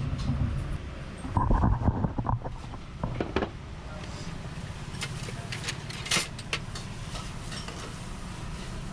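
Café ambience: a steady low rumble with scattered clicks and knocks, and a brief louder stretch about one and a half seconds in.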